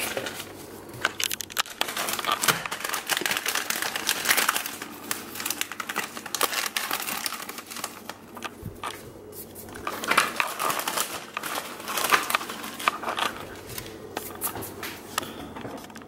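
Plastic-wrapped Peeps marshmallow candy packages crinkling and rustling as Peeps are pulled out by hand. The crinkling comes on and off, with a few quieter pauses.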